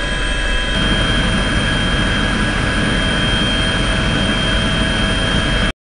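Helicopter turbine and rotor noise heard inside the cabin, steady and loud, with a constant high turbine whine. It cuts off abruptly near the end.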